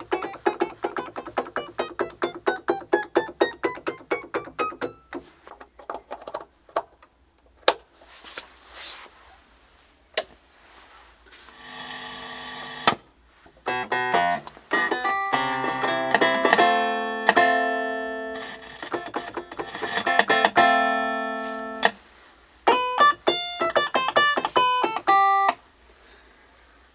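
Hohner Clavinet being played as a test after repair: first a rising run of single notes, then scattered notes, then chords and short phrases. Its tone is noisy and clicky, with some notes not yet sounding clearly because the hammers still need adjusting.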